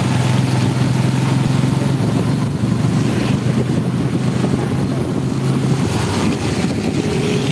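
A vehicle's engine runs with a steady low hum while driving through heavy rain, under a dense hiss of rain and wet road with wind on the microphone. The engine hum drops away about six seconds in, leaving the rain-and-road hiss.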